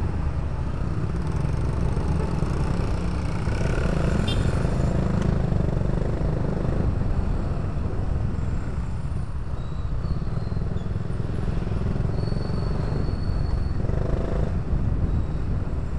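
Riding noise from a motorcycle in traffic: the engine running under a steady low rumble of wind on the camera's microphone.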